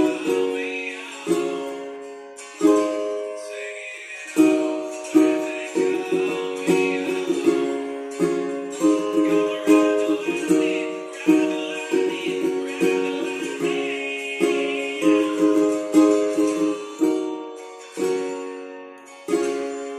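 Ukulele, capoed at the first fret, strummed through a Dm–F–C–G chord progression. It starts with single down-strums about a second apart, changes to a busier down-up strum pattern about four seconds in, and returns to single ringing down-strums near the end.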